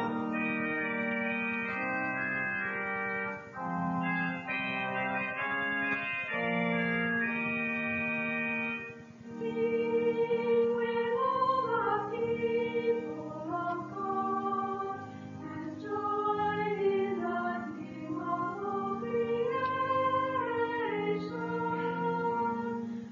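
Organ playing in held chords; from about nine seconds in a singing voice joins, carrying a melody over the organ.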